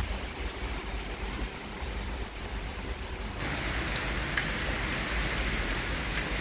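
Heavy rain falling, a steady hiss. About three and a half seconds in, the sound changes abruptly to a brighter, denser hiss with individual drops ticking.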